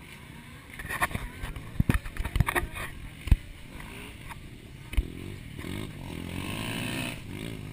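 Dirt bike engines revving at the start line, pitch rising and falling in the second half. Before that come a series of sharp knocks and bumps close to the microphone.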